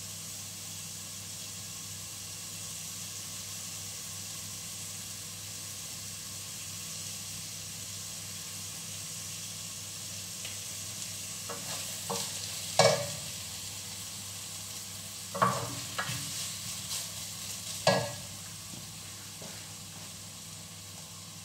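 Vegetables sautéing in hot oil in a metal pot, sizzling steadily. In the second half a utensil knocks sharply against the pot several times as they are stirred, three of the knocks much louder than the rest.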